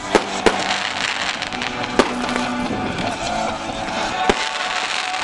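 Fireworks going off, with four sharp bangs: two close together at the start, one about two seconds in and one about four seconds in. They sound over steady background music.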